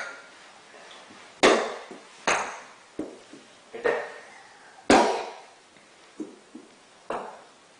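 A plastic toy golf club knocking against plastic golf balls: about seven sharp, irregularly spaced knocks, a few ringing briefly.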